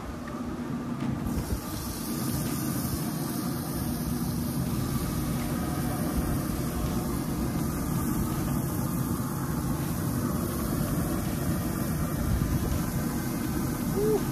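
Turkey burger patties sizzling as they are laid on the hot grate of a Pit Boss pellet grill at 400 degrees, the hiss starting about a second in, over a steady low rumble of the running grill.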